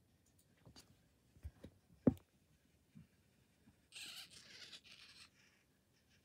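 Faint handling noises: a few light clicks with a short, louder knock about two seconds in, then a soft rustle lasting about a second near four seconds in.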